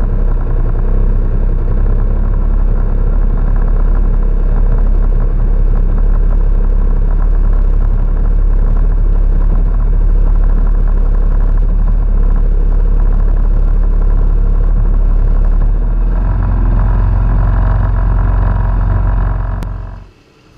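Jet ski engine running steadily at low speed, heard close up from the craft itself. Its sound changes about three-quarters of the way through, then drops away abruptly just before the end.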